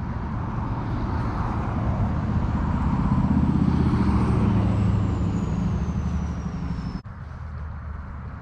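A vehicle passing on a nearby road: a low engine and tyre rumble that swells, peaks midway and fades, with a faint high whine that slowly falls in pitch as it goes by, then cuts off abruptly near the end.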